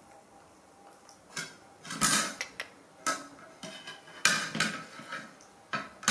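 A macaque's hands knocking a metal spoon about on a plastic plate while it picks at food: an irregular series of clatters and scrapes, loudest about two seconds and four seconds in.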